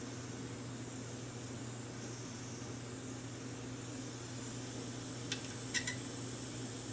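Butane gas soldering iron hissing steadily, a little louder from about four seconds in as it is brought to the pads, with a few light clicks a little after five seconds.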